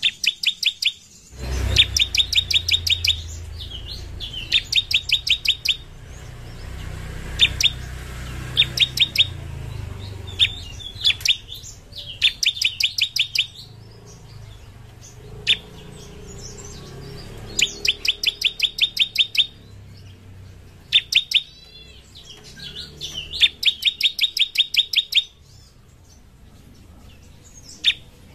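Bar-winged prinia (ciblek) singing: repeated bursts of rapid, sharp high notes, about nine notes a second, each burst lasting one to two seconds, with single sharp notes in between.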